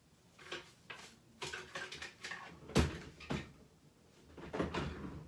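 Irregular knocks and clunks of cupboards and drawers being opened and shut, the loudest knock about three seconds in.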